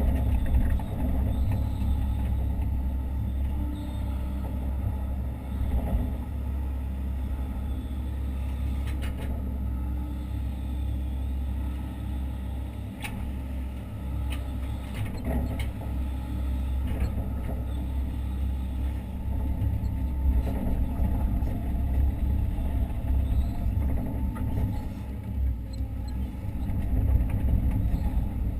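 Hitachi Zaxis 130 excavator's diesel engine running steadily, heard from inside the operator's cab as a low rumble, with a few faint knocks.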